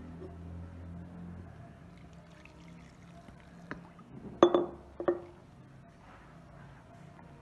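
Flour and lukewarm milk being mixed into dough by hand in a plastic bowl, with a few sharp knocks about three and a half to five seconds in, the loudest ringing briefly.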